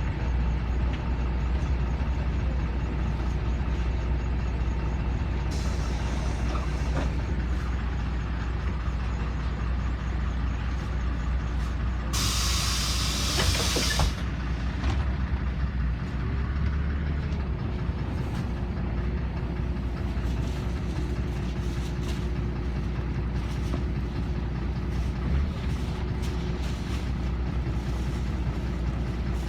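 LiAZ 5292.21 city bus running with a steady low engine and drivetrain drone. About halfway through, compressed air hisses out of the bus's air system for about two seconds, and a fainter hiss comes earlier.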